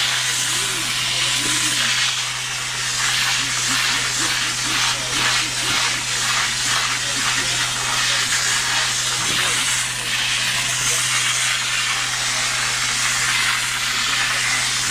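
Upholstery hot-water extraction cleaner running: a steady motor hum under a loud hiss of spray and suction as the hand tool is drawn across the sofa's fabric. For a few seconds in the middle the hiss pulses about twice a second.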